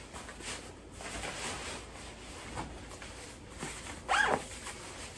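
Soft rustling of a nylon puffer vest's fabric, with a brief louder sound about four seconds in.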